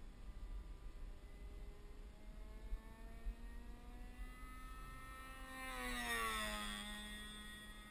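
The single-cylinder Evolution GX10 10cc two-stroke petrol engine of a Precedent T180 radio-controlled model plane running steadily in flight. About six seconds in the plane passes close overhead, getting louder and dropping in pitch as it goes by.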